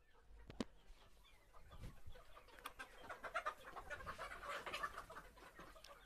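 A flock of Sonali chickens clucking, many birds calling over one another and busiest past the middle, with a single sharp click under a second in.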